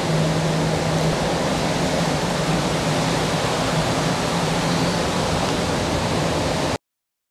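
Steady rushing noise with a low hum under it in the first second, cut off abruptly into silence near the end.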